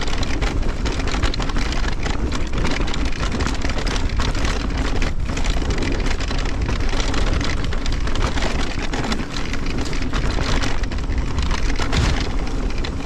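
2023 Fezzari Timp Peak electric mountain bike riding fast down a dry, rocky dirt trail: a steady crunching and rattling from tyres on dirt and stones and the bike clattering over bumps, with wind rumbling on the action camera's microphone.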